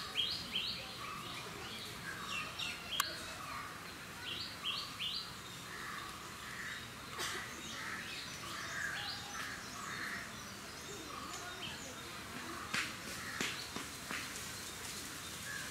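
Small birds chirping: quick runs of short, high repeated notes, mostly in the first few seconds, with softer, lower calls through the middle. A single sharp click about three seconds in.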